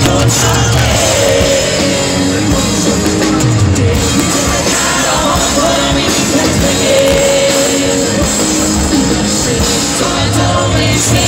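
Live rock band playing in an arena, heard from within the crowd, with singing over steady heavy bass and drums.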